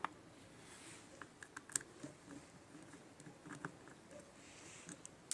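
Scattered small clicks and taps with brief soft scraping, from tools and plastic parts being handled while a Samsung Galaxy J7 Nxt smartphone is taken apart.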